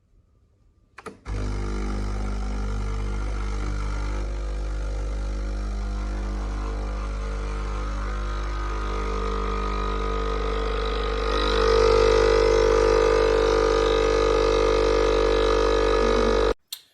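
Sage Barista Express espresso machine running with a steady low mains-frequency hum for about fifteen seconds. It gets louder about two-thirds of the way through, then cuts off suddenly.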